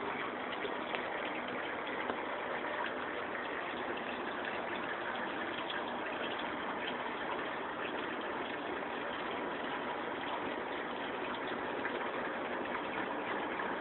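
Steady rush of water trickling down through a saturated paper evaporative cooling pad, mixed with the running of two box fans used as makeshift exhaust fans.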